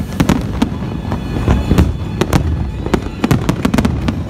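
Fireworks going off: a rapid run of sharp bangs and crackles, several a second, coming thicker in the second half, over a low rumble.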